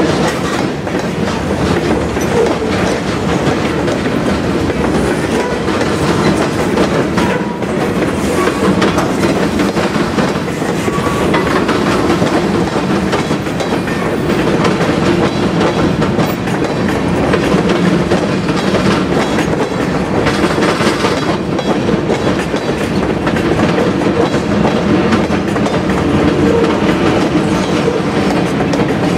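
Freight train of covered hoppers and boxcars rolling past close by. Steel wheels run on the rail in a loud, steady rumble, with rapid clicking from the wheels.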